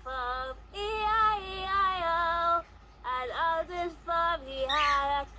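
A young girl's voice singing a slow tune in held, wavering notes, a cartoon song played through a laptop speaker.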